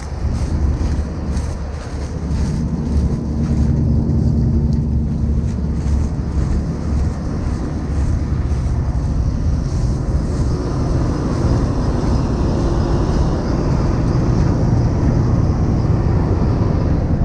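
Claas Lexion 770 combine harvester running steadily, a loud, low engine hum that steps up in level about half a second in.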